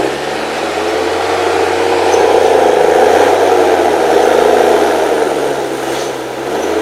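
HSM 904 S forestry machine's 6.7-litre diesel engine running under load, its note rising and falling as the revs change, loudest midway.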